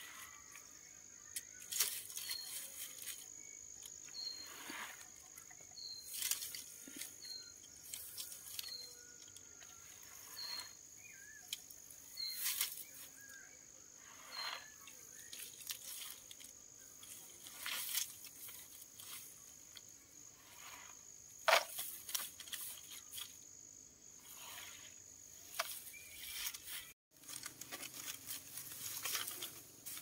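Dry rice stalks and panicles rustling and crackling as they are gathered and pressed together by hand, in short irregular strokes, one sharper crackle about two-thirds of the way in. A steady high insect drone runs beneath, with short high chirps repeating about once a second in the first half.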